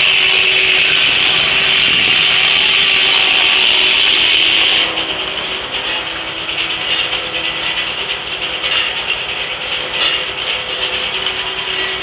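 Circular sawmill with a 52-inch blade, belt-driven by a John Deere tractor, sawing a walnut log: a loud, steady, high-pitched sawing noise that drops off about five seconds in as the cut ends. After that the blade runs on more quietly, with irregular knocks from the mill.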